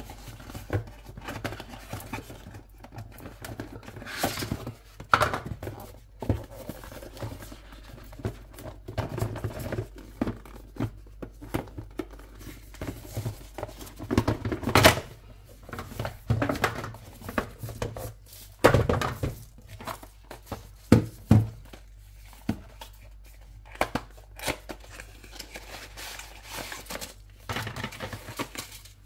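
Hands unboxing a drone: packaging tearing and plastic and paper crinkling, with irregular clicks and knocks as the box and its parts are handled, over a steady low hum.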